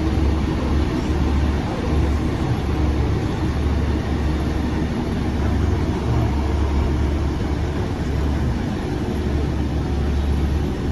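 Cabin noise inside a moving British Rail Class 150 diesel multiple unit: a steady low drone from the underfloor diesel engine under the wheel-on-rail rumble of the train at speed.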